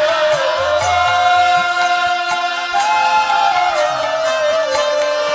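Devotional kirtan: a singer holds long chanted notes that step up and down over a steady drone, with drum beats and cymbal strokes about twice a second.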